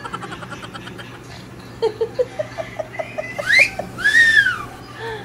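Hotel whirlpool tub with its jets running, a steady hum and churning water. About two seconds in a person laughs in a quick run of short notes, then two high gliding whoops follow, one rising and one rising-and-falling.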